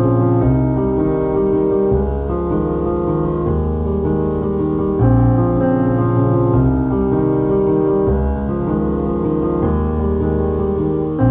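Background piano music: a slow run of held chords over a deep bass, with the chord changing every second or two.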